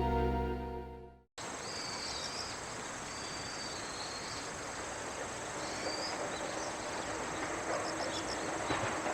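Background music fades out about a second in, giving way to outdoor ambience: birds chirping now and then over a steady high insect drone. Near the end a faint low hum and rising rumble come in as a train approaches the level crossing.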